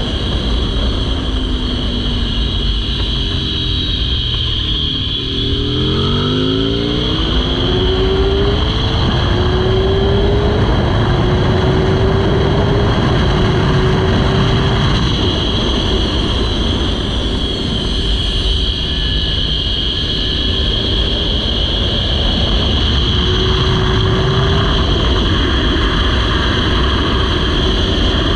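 Onboard sound of a sport motorcycle at speed on a race track. Its engine note climbs through the gears under hard acceleration and then holds high down the straight, under heavy, steady wind rush on the microphone.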